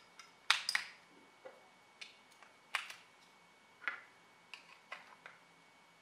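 A run of sharp plastic clicks and taps as AA batteries are pressed into a Samsung smart remote's spring-contact battery compartment and its back cover is snapped on, loudest about half a second and just under three seconds in.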